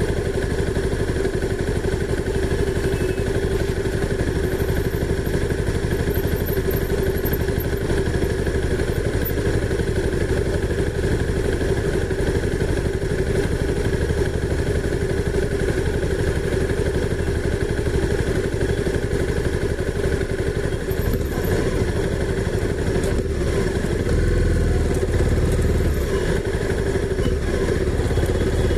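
Honda CB300R's single-cylinder engine running at a steady, even pace, getting a little louder with more low rumble near the end.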